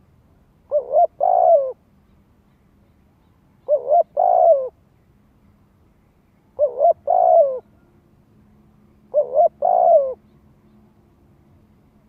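Spotted dove cooing: four phrases about three seconds apart, each two short notes followed by a longer coo that falls at the end. This is its territorial call, used by a decoy bird to provoke and draw in wild male doves.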